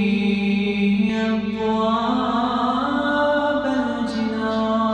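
A man chanting an Arabic supplication (dua) solo, holding long melismatic notes; the melody climbs about halfway through and then settles back down.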